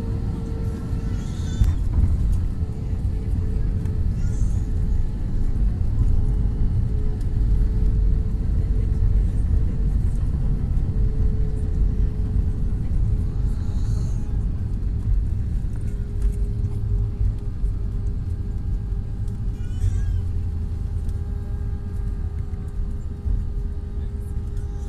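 Airbus A320 cabin noise on landing: a thump about two seconds in as the wheels touch down, then a heavy, steady rumble through the rollout with the ground spoilers raised over the wing.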